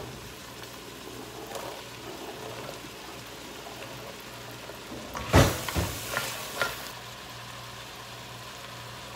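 Diced onions and carrots sizzling steadily in an enameled cast-iron Dutch oven. A sharp knock about five seconds in, followed by a few lighter taps.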